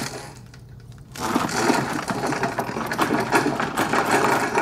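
A dense, rapid clattering rattle from the film's soundtrack, starting about a second in.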